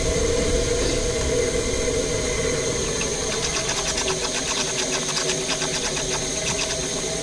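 Steam injector on a third-scale Burrell showman's traction engine running, feeding cold water into the boiler: a steady rushing hiss with a held tone that drops a little in pitch about three seconds in, joined by a fast fine ticking.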